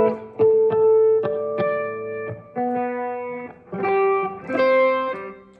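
Strat-style electric guitar played through a Headrush Prime amp modeller on a mid-gain, classic-rock 'brown sound' overdrive patch: about half a dozen picked notes and chords, each left to ring, dying away near the end.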